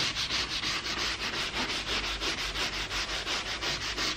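A stiff detailing brush, its bristles cut short, scrubbing the top of a car's interior door trim in quick, even back-and-forth strokes, about five a second.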